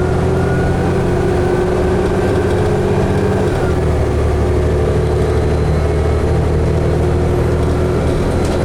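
2011 New Flyer D60LFR articulated diesel bus running under way, with a steady engine drone and a whine. The whine climbs in pitch for the first three seconds or so, then the engine note drops and settles, as at a gear shift.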